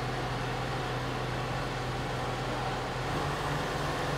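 A Sealegs amphibious boat's 28-horsepower fuel-injected Honda inboard engine running steadily, driving the hydraulic pump for the wheels. Its hum lifts slightly about three seconds in.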